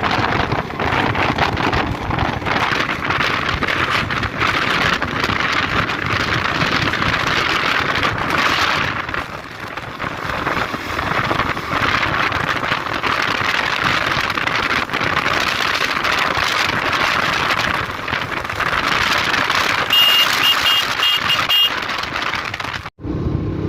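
Steady rushing wind noise on the microphone, mixed with the sound of a moving vehicle. Near the end comes a quick run of short, high beeps, then the sound cuts off suddenly.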